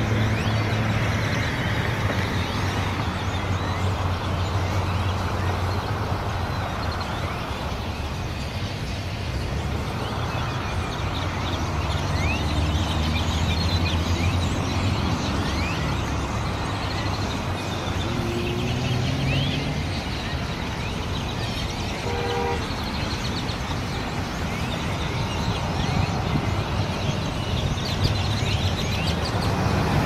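Road traffic and a car engine humming, with the calls of a large flock of birds overhead heard as many short, high chirps throughout. A brief horn-like toot sounds about three-quarters of the way through.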